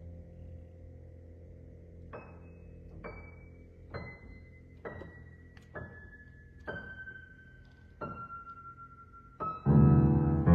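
Background piano music: single notes stepping down in pitch about once a second over a held low tone, then a loud full chord near the end.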